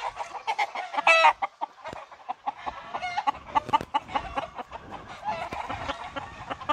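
Chickens clucking, short calls repeating over and over, with one louder, brighter call about a second in.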